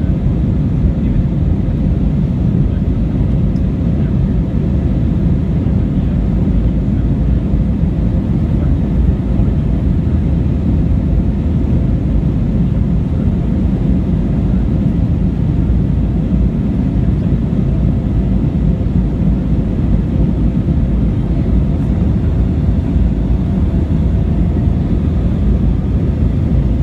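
Airliner cabin noise in flight: a steady low rumble of jet engines and airflow heard from inside the cabin, with a faint steady hum above it.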